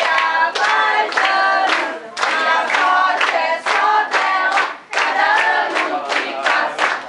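A crowd of party guests singing a birthday song together, clapping along in a steady rhythm.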